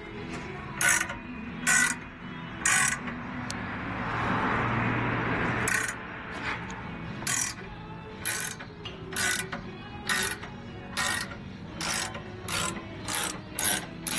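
Hand socket ratchet wrench clicking in repeated short strokes, roughly one or two a second, with a pause of a couple of seconds a few seconds in. Music plays faintly underneath.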